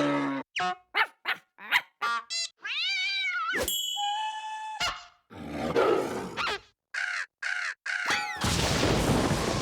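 A quick series of cartoon sound effects: a run of short blips, a wavering warble about three seconds in, a held tone, then noisy rushing sounds toward the end.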